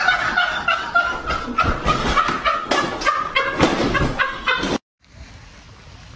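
Loud, repeated laughter, a person snickering and cackling, that cuts off suddenly a little before the end, leaving a much quieter background.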